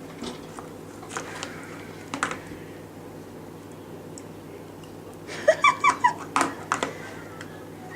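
A few light taps, then about five and a half seconds in a quick string of short, high-pitched vocal sounds from a baby.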